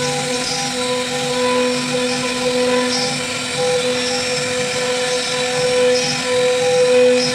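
CNC router spindle running with its bit cutting into a wooden board, milling a groove: a steady whine with a cutting noise that swells and fades as the load on the bit changes.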